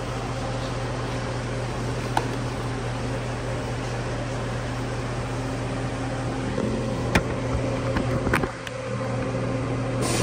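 Engine-driven 800-amp Air Pak welding machine running steadily with a constant hum, broken by a few sharp clicks.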